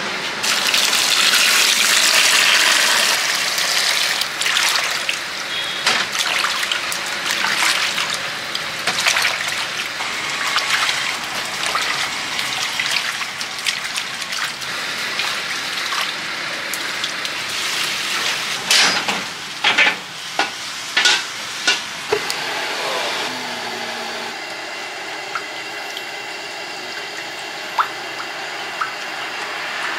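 Water running and splashing as cut fish pieces are rinsed in a plastic basin. A few sharp knocks come in the later part, and it grows quieter toward the end.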